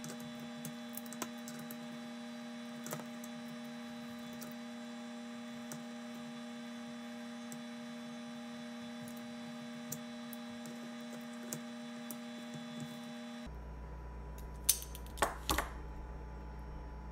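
Steady electrical hum with faint, scattered small clicks and taps as hands and a tool work parts out of an RC car's chassis. A few louder clicks come near the end.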